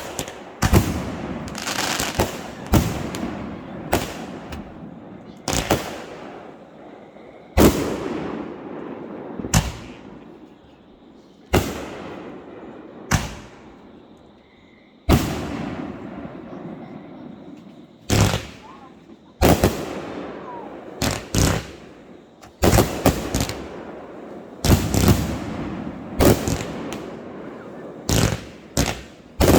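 Fireworks going off: a long run of sharp bangs, one every second or two at first and more tightly bunched in the second half. Each bang trails off in a long, fading echo.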